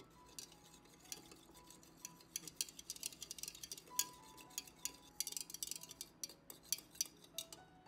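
Small metal wire whisk clicking and tapping against the sides of a plastic measuring jug as salt is stirred into cold water: quick, irregular taps, with faint background music underneath.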